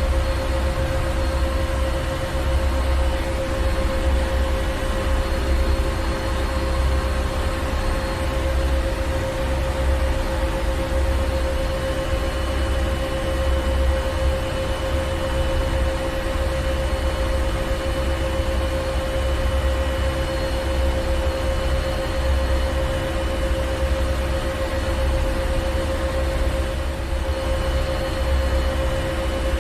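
Ship engine room machinery running steadily: a deep rumble that throbs unevenly, a steady hum and a hiss over it.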